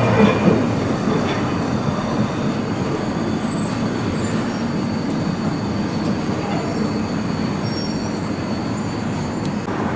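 Tokyo Metro Ginza Line 1000 series subway train running: a steady rumble, with faint high squeals from about three seconds in.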